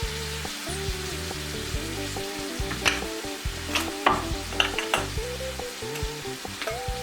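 Food sizzling in a frying pan, with a few sharp clinks of stirring in the middle, over background music.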